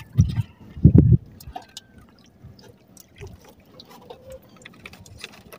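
Water dripping and splashing lightly in a small wooden boat as squid and fishing line are handled, with scattered small clicks. Two dull thumps stand out within the first second.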